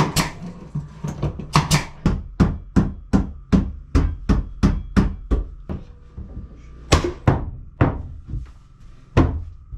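Hammer striking hardwood floorboards again and again to drive them into place, about two blows a second, with a short pause around six seconds in.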